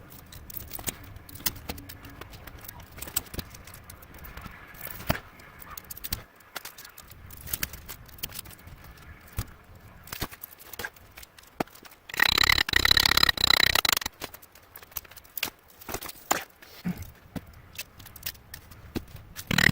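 Hand tools working at the glued copper windings of an electric motor stator: scattered metallic clicks, knocks and scrapes as the wire is prised and pulled. About twelve seconds in comes a loud, harsh scraping burst of about a second and a half with a high ringing edge.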